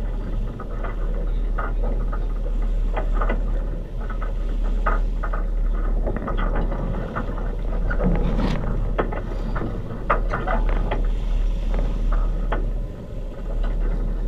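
Water rushing and splashing along the hull of a sailing yacht under way under sail, with irregular short splashes over a steady low rumble of wind on the microphone.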